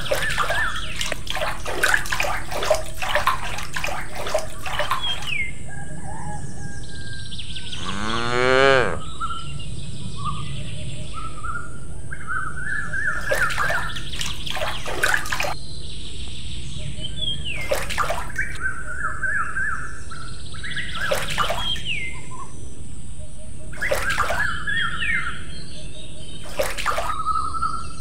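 Small birds chirping in short repeated phrases over a steady hiss, with splashes and trickles of water as a tiny metal scoop dips into and pours from a toy pool. A single rising call sounds about eight seconds in.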